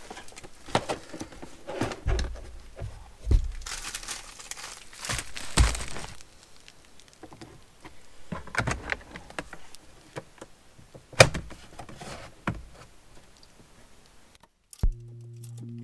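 Hands working plastic interior trim around an Alfa Romeo 159's glovebox and door pillar: irregular plastic clicks, knocks and rustles, a few dull thumps, and one sharp click about eleven seconds in. Background music starts near the end.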